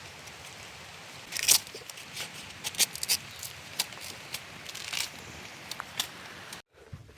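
Irregular sharp snaps and crackles over a steady hiss, the loudest about a second and a half in and again near three seconds. The sound cuts out abruptly about six and a half seconds in.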